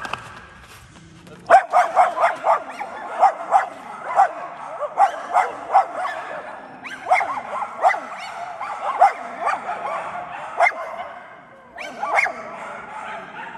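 A dog yelping and whining in a quick run of short, high-pitched cries, two or three a second, starting about a second and a half in. The cries pause briefly near the end, then come again once more.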